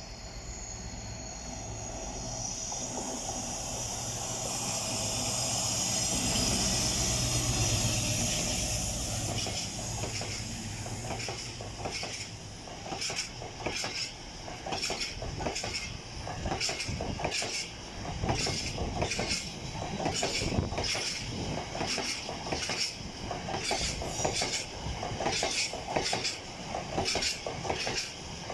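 Freight train passing: the locomotive's engine drone grows louder to a peak in the first ten seconds, then a long rake of bogie hopper wagons rolls by, its wheels clicking over the rail joints in quick repeated clusters.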